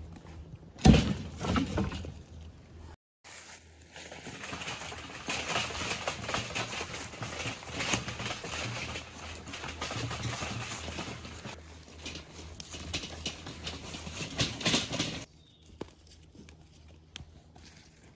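Footsteps walking through dry fallen leaves and twigs: a steady rustle with many small cracks that runs for most of the clip and stops suddenly. It opens with a single loud knock and rustle of handling.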